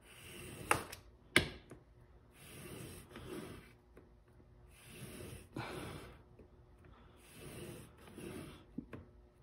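Single-bevel steel broadhead in a KME sharpener holder drawn in slow strokes across an abrasive sheet on glass: about four soft scraping strokes, each about a second long, with two sharp clicks of the holder in the first second and a half.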